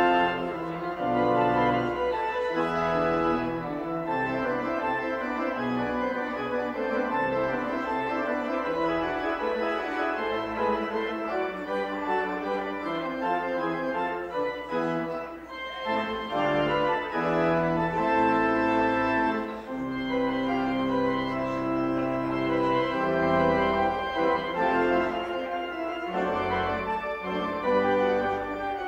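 Church organ playing slow, sustained chords over a moving bass line.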